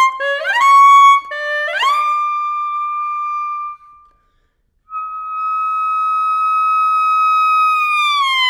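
Solo alto saxophone playing quick notes that scoop upward into a long held high note. After a short pause, a second long high note is held and begins to slide downward near the end.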